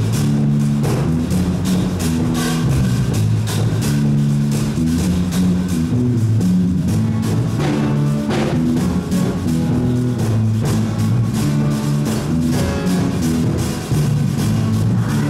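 A worship band plays: an acoustic guitar strums and a drum kit keeps a steady beat under held low notes that change every second or so.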